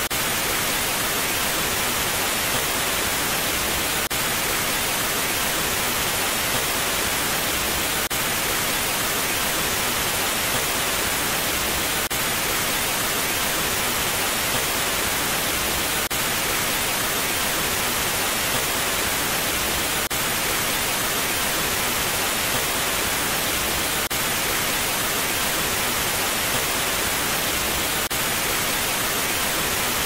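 TV static: a steady, unbroken hiss of white noise, heaviest in the treble.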